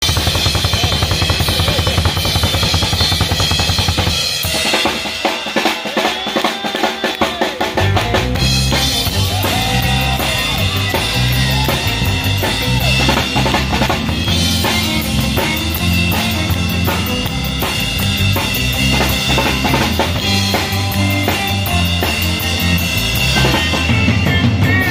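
Live band playing with a close-up drum kit loudest, over electric bass and electric guitar. About four seconds in the low bass notes drop out for about four seconds, leaving mostly rapid drum hits, then the full band comes back in.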